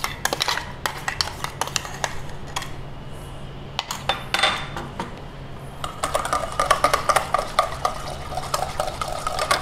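Wire whisk clinking and scraping against a stainless steel bowl, mixing a thick yogurt marinade. About six seconds in the whisking turns fast and steady, the bowl ringing with each stroke.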